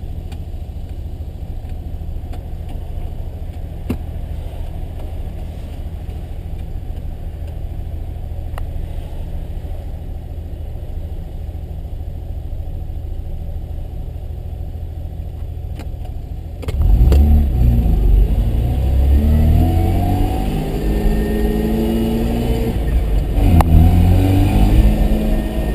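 Mazda RX-7 rotary engine idling steadily, then about two-thirds of the way through it suddenly gets much louder and revs up, its pitch climbing, dropping back and climbing again as the car accelerates.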